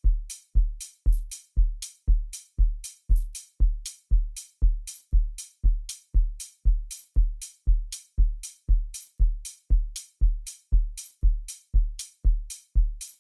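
Programmed electronic kick drum playing a steady four-on-the-floor beat at about two hits a second, each hit a deep thump with a short click on top.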